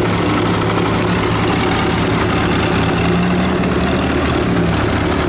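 Tractor engine running at a steady speed, a low, even drone with no revving.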